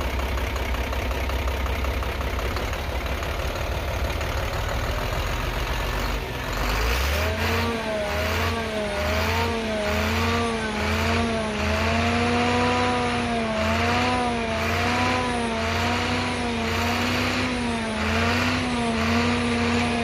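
Rebuilt FAW 260 hp six-cylinder diesel truck engine idling steadily on its first run after the rebuild. About seven seconds in, a warbling tone that rises and falls about once a second joins it, with a low pulsing under it.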